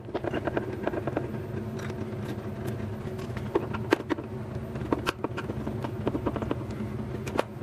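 Small irregular metallic clicks and ticks of a screwdriver working the Z-axis gib adjustment screw on a Tormach PCNC 770 CNC mill, over a steady low hum.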